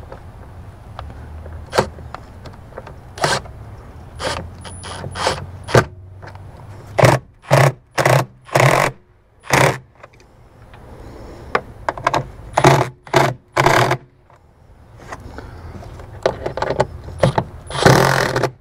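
Milwaukee cordless impact driver run in short bursts to snug 8 mm bolts: two quick runs of about four bursts each, the second group near the end. Scattered clicks of the tool and fasteners come before them.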